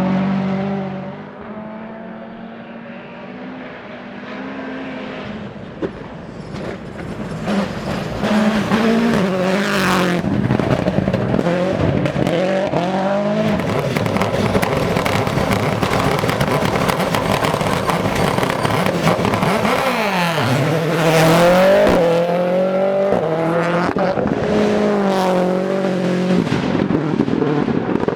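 Toyota Yaris AP4 rally car driven hard, its engine revs climbing and dropping over and over through gear changes and lifts, with tyre noise. Quieter for the first few seconds, then loud at full throttle from about seven seconds in.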